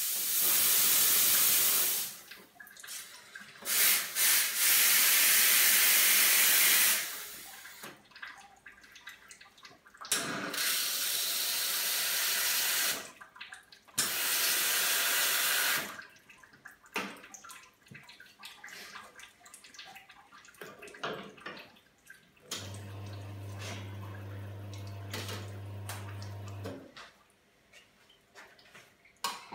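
Steam wands of a Reneka Viva S two-group espresso machine being purged: four loud hissing bursts of steam, a few seconds each, with small clicks and knocks between. Near the end a steady low hum runs for about four seconds, the machine's pump running.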